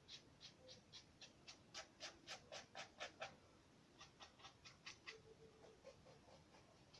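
Paintbrush scratching over a paper model boat in quick back-and-forth dry-brush strokes, about three to four a second. The strokes pause briefly about three seconds in, then start again more softly.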